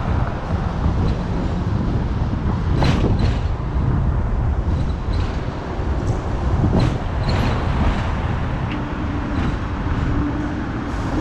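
Hong Kong double-decker tram running along street tracks, heard from on board: a steady low rumble with several sharp clicks and brief high squeals from the wheels on the rails. A low steady hum joins near the end.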